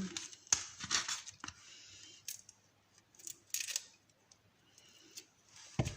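A few short clicks and rustles of small kitchen items being handled, spaced irregularly, with a louder cluster about three and a half seconds in.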